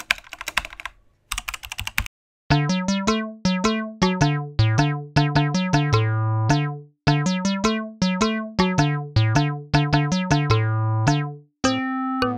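A keyboard-typing sound effect, two quick runs of clicks, for about the first two seconds. Then light background music starts: a tune of plucked electric-piano-like notes, each one dying away.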